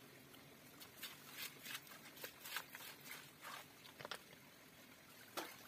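Faint, irregular clicks and scrapes of hands digging among wet stones and mud in a stream bed, about a dozen scattered over the few seconds.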